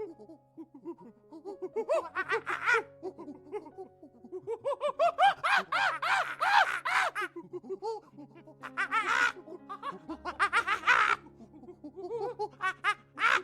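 Monkeys chattering: several bouts of rapid, squeaky calls that rise and fall in pitch, with short pauses between bouts.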